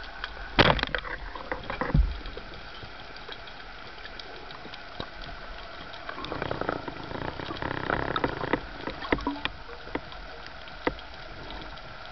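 Band-powered speargun fired underwater: a sharp clack about half a second in, then a deeper knock about a second later, on a shot that misses. A few seconds of rushing noise follow near the middle, over faint scattered ticks.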